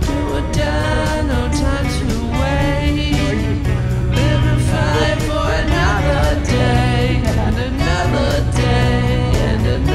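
Background music: a song with a singing voice over bass and a steady drum beat.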